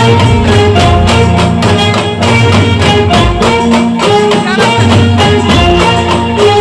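Indian brass band playing a loud melody, held horn notes in several voices over a steady, driving drum beat.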